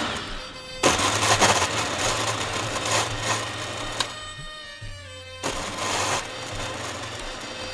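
Countertop blender motor running in pulses as it blends soaked moong dal and water into batter. It stops just after the start, runs again about a second in, then cuts off about four seconds in and winds down before starting again a second and a half later.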